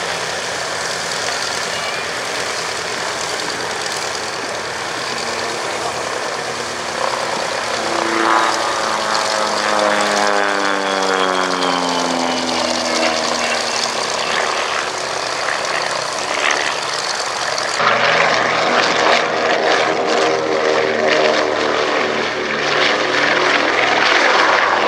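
The twin radial engines of a Consolidated PBY-5A Catalina run with a steady drone. From about a third of the way in the pitch falls as the aircraft flies past. Past the middle the sound changes abruptly, and the engines go on droning at a steady pitch.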